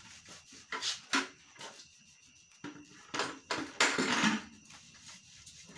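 Gear being handled: a couple of sharp knocks about a second in, then a rubbing, scraping stretch with more knocks around the middle.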